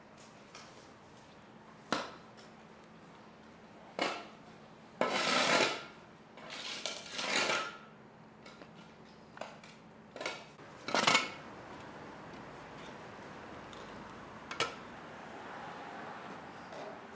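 Handling noises: scattered sharp knocks and clinks, with two longer scraping or rustling sounds about five and seven seconds in.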